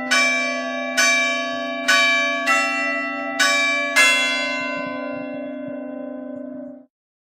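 Swinging church bells, cast by Giovanni Battista Mazzola in 1845 and rung a distesa in the Ambrosian system by an electric ringer. There are six clangs at uneven gaps, then the bells hum and ring on as the sound dies away, until it cuts off suddenly near the end.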